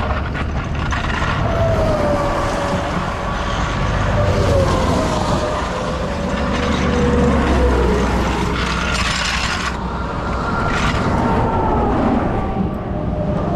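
Interstate traffic going by close at hand: vehicles pass one after another, each with a whine that drops in pitch as it goes by, over a constant low rumble.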